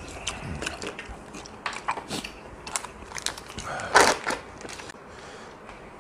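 Eating sounds: chopsticks clicking and scraping against a small bowl amid chewing, a scatter of sharp clicks with one louder noisy burst about four seconds in. It goes quieter after about five seconds.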